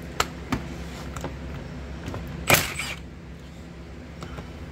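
Metal clicks and knocks as cast brake calipers and a long bleeder socket are handled on a workbench, with one louder short clatter about two and a half seconds in.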